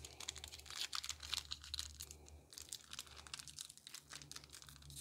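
Foil wrapper of a Pokémon trading card booster pack crinkling and crackling in irregular bursts as both hands twist and pull at its crimped top to tear it open; the pack resists and does not tear.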